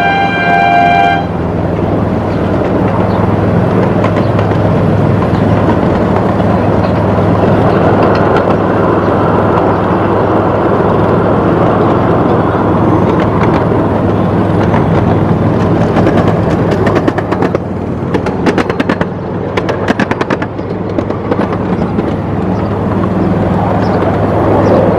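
Miniature ride-on train running along its track with a steady hum and wheel rumble. A horn toot ends about a second in, and a run of rapid clicks from the wheels on the track comes about two-thirds of the way through.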